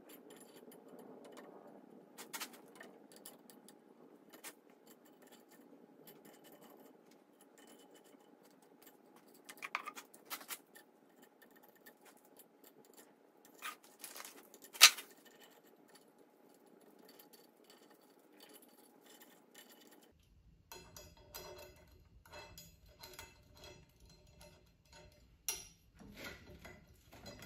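Light metallic clicks and clinks of steel bolts being picked up and threaded by hand into tapped holes along a steel linear rail, scattered and irregular, with one sharper clink about halfway through.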